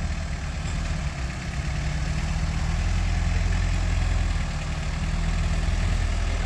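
Off-road 4x4 engine running steadily at low revs while the vehicle is eased slowly up a steep climb.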